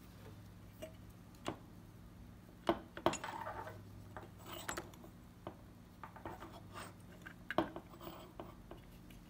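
Small hard parts and tools being handled: irregular clicks, taps and clinks with short rattling clusters, over a steady low hum.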